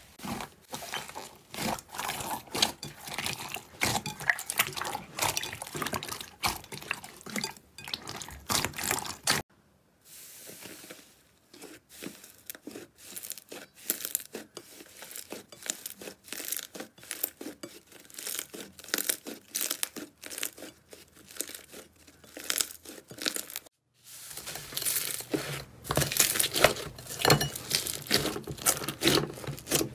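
Slime squeezed and kneaded by hand in a glass bowl, making dense, irregular crackling and popping clicks as air pockets burst. Two short silences break it, about 10 and 24 seconds in, and the middle stretch is quieter.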